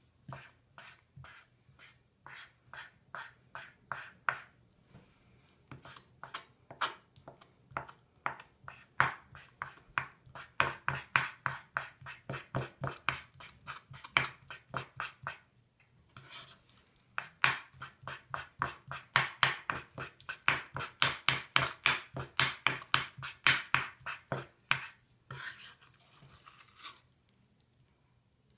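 Kitchen knife chopping a firm shower jelly on a wooden cutting board: quick repeated strokes of several a second, each blade landing with a sharp tap on the board. There is a brief break partway through and a short scraping stretch near the end.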